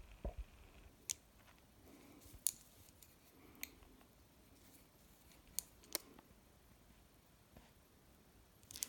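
Faint, irregular light clicks, about six, with soft handling sounds between them, as acrylic is worked with an acrylic nail brush on a paper nail form.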